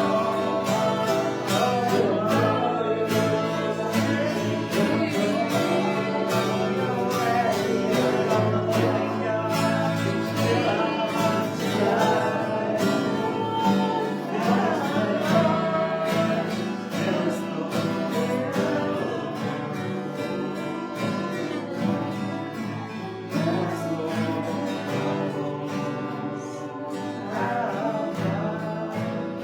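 Church worship song: singing over guitar accompaniment.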